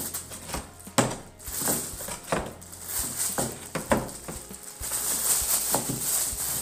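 Clear plastic bag rustling and crinkling as kibbeh are handled and packed into it, with scattered sharp crackles.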